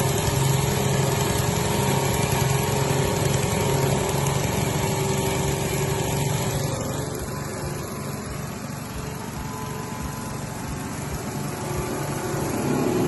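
Husk machine running steadily under its motor, with a constant hum. It eases off somewhat midway and builds back up near the end.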